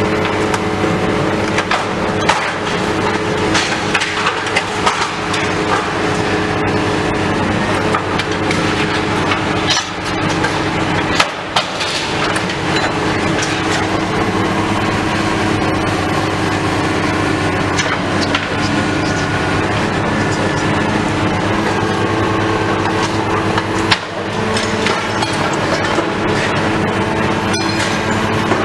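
Heavy demolition machinery working on a building: a diesel engine running steadily under the constant crunching, cracking and clanking of debris being broken and pulled apart.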